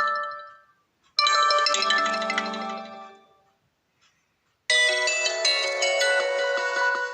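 Short melodic ringtone phrases from an HTC One M8 phone, played one after another. One phrase starts about a second in and rings out within about two seconds; a different, fuller phrase starts a little past halfway and is still sounding at the end.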